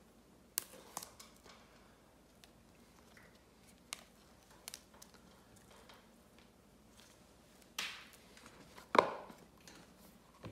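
Handling of a cardboard iPhone retail box: scattered light taps and clicks, then near the end a short rustling scrape and a sharp knock as the lid is pulled off the box.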